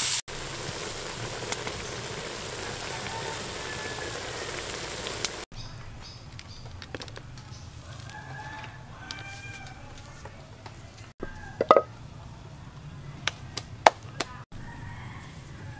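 Food sizzling in a wok for about the first five seconds, then quieter outdoor ambience in which a chicken calls a little past the middle. A few sharp clicks follow near the end.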